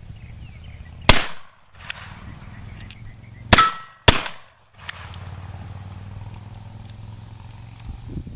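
Three shots from black powder percussion pistols: one about a second in, then two close together about a second and a half later.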